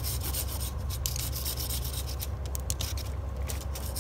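Hand pruning saw cutting through a live tree branch in quick back-and-forth strokes, the teeth rasping in the wood, with a few short pauses. This is the weight-removing cut that lets the branch drop.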